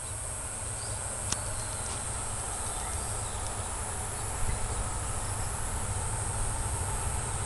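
Low rumble of an approaching WDG4 diesel-electric freight locomotive, growing gradually louder. Insects keep up a steady, high-pitched shrill over it.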